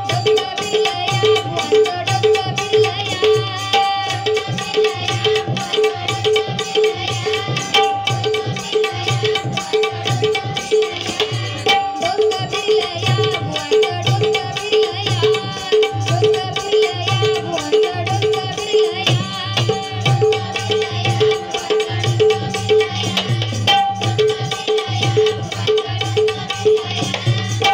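Devotional bhajan music: an Indian hand drum plays a steady, fast rhythm under a sustained harmonium melody.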